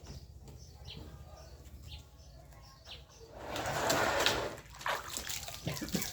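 Water splashing onto a refrigerator as it is washed down. The splash comes in one burst of about a second and a half, past the middle.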